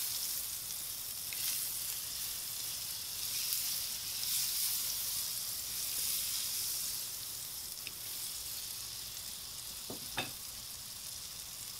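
Butter sizzling and bubbling as it melts on a hot Himalayan salt block over a gas grill: a steady hiss, with a short click about ten seconds in.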